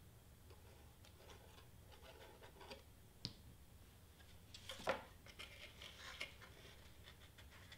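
Faint handling of a cardstock paper letter and a glue bottle: light paper rustling with a few small clicks and taps, the sharpest about five seconds in.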